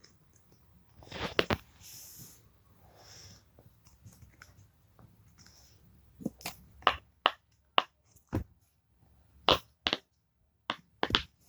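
Silicone rainbow pop-it fidget toy having its bubbles pressed one by one: a string of short, sharp pops at an uneven pace, a couple about a second in and about ten more through the second half.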